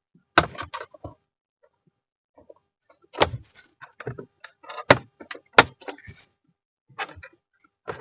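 Plastic interior trim clips snapping loose as a console side panel is pried off with a plastic trim tool: about five sharp snaps, each followed by brief plastic clicking and rattling.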